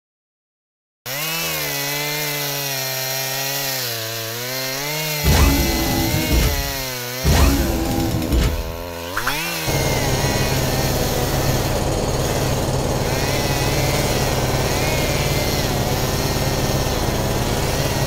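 Power-drill motor sound effects: after a second of silence a drill whirs with its pitch wavering up and down, then loud hits and two rising whines come in the middle, and from about ten seconds a steady, dense buzzing drill run.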